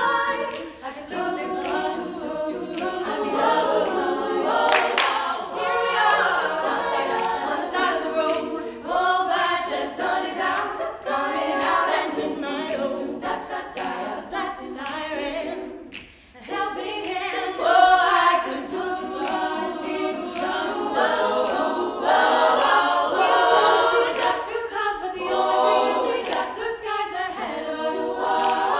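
All-female a cappella group singing a pop song in close harmony, voices only, with short sharp clicks over the singing. The sound drops out briefly about sixteen seconds in, then the voices come back in together.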